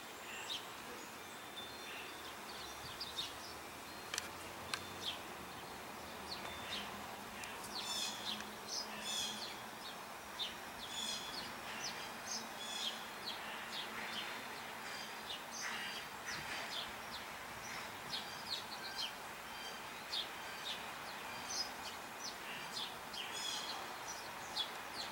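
Small birds chirping and calling, many short high notes scattered throughout, over a steady background hum of outdoor noise.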